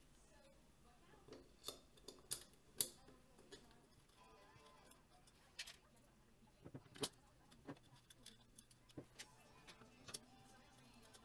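Scattered light clicks and knocks of a 3D-printed plastic tube being handled and set down on a wooden table top, the loudest a sharp knock about three seconds in. Near the end a small hex key clicks against the tube as it is fitted.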